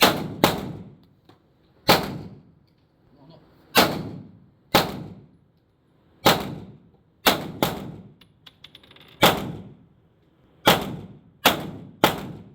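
Gunshots from a firearm at a shooting range: about a dozen single shots at an uneven pace, some in quick pairs, each followed by a short echoing tail.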